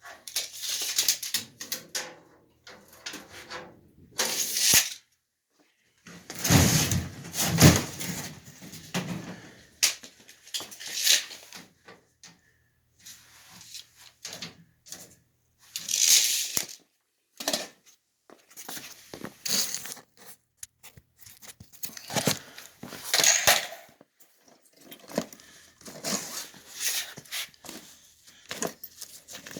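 Irregular bursts of rustling and scraping handling noise, each under a second long with short gaps between, loudest about a quarter of the way in.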